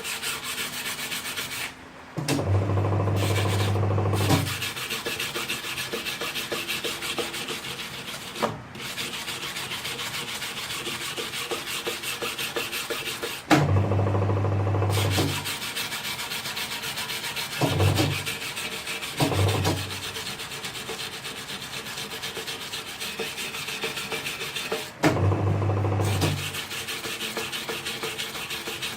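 Wire brush scrubbing dirt and deposits off the bead seat of a motorcycle wheel rim: a continuous scratchy rasping. Three times the scratching pauses while a low steady hum runs for one to two seconds, with two shorter hums in between.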